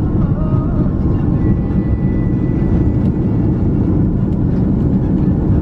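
Steady cabin rumble of an Airbus A330 airliner's engines and airflow, heard inside the passenger cabin, with no bumps or changes.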